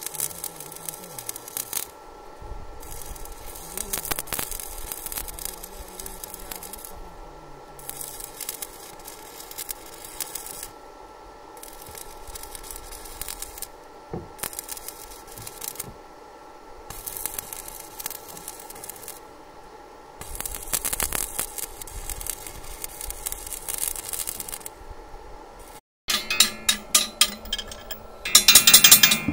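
Stick arc welding on steel rebar: the electrode's arc crackles and sizzles in stretches of a few seconds, breaking off briefly between runs. Near the end comes a quick series of sharp metallic knocks on the rods.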